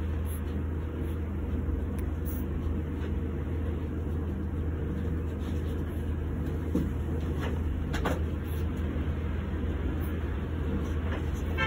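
Steady low rumbling noise, with a faint brief sound about eight seconds in.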